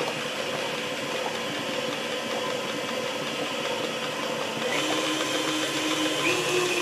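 KitchenAid stand mixer running steadily, its motor humming as the beater whips cream cheese and butter frosting in the steel bowl. About five seconds in the motor note gets a little louder and higher, and it steps up again near the end.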